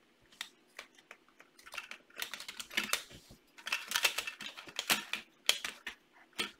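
Plastic LEGO Mindstorms parts clicking and rattling in quick, irregular runs as the robot's head is handled and fitted onto its body. The clatter is sparse at first and thickest from about two seconds in until near the end.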